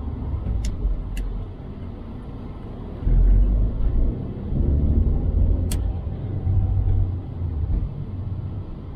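Car engine and road rumble heard from inside the cabin as the car makes a U-turn, growing louder about three seconds in. Three short clicks stand out over it.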